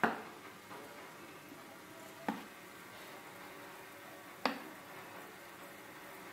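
A metal ladle clinking against metal cookware as cake batter is ladled out, three sharp knocks about two seconds apart, each with a short ring.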